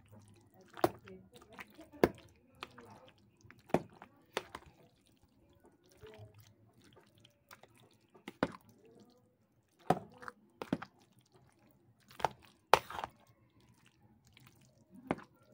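Metal spoon stirring a creamy macaroni salad in a plastic container: soft wet squelching broken by irregular sharp clicks of the spoon against the container, the loudest about three-quarters of the way through.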